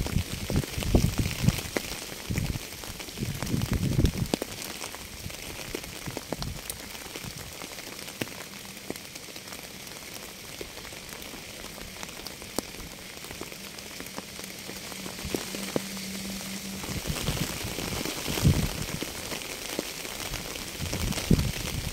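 Steady rain hiss with many single drops ticking through it. A low rumbling swells under it at the start and again in the last few seconds.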